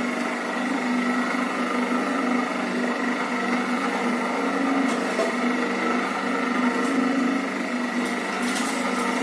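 Electric gear-motor drive of a stainless steel porridge mixer (a 1/4 HP single-phase motor through a 1:60 worm gearbox) running steadily and turning the stirring paddle in the pot, a continuous machine hum.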